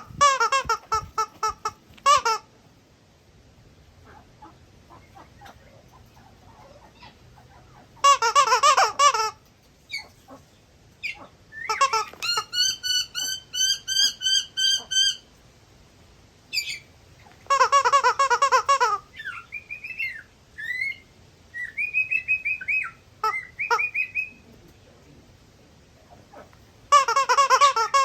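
Eclectus parrot calling. There are four short bursts of rapid, harsh squawks, a held, wavering whistle-like call of about three seconds in the middle, and several short whistled notes that rise and fall.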